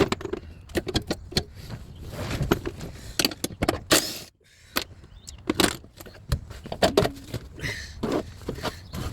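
Hand tools working on a car engine bay: irregular metallic clicks, clinks and knocks, with a low steady rumble beneath and a short gap about four seconds in.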